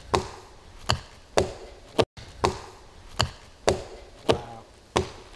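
Two stone axes chopping into the trunk of a standing white pine, blows alternating from either side. About ten sharp knocks land at roughly two a second.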